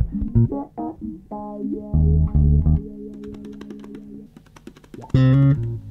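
Instrumental opening theme music: a bass line with plucked-string melody notes, quieter for a moment in the middle before loud low notes return near the end.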